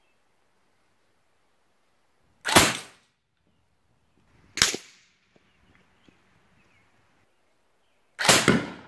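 Three sharp, loud shots from a scoped rifle, a couple of seconds apart and each followed by a short fading echo, fired at a pressurised 2-litre bottle reactive target. The last bang is the longest.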